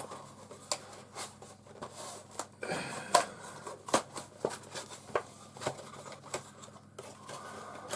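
A cardboard model-kit box being handled close by: irregular light clicks, taps and rustles of card and paper.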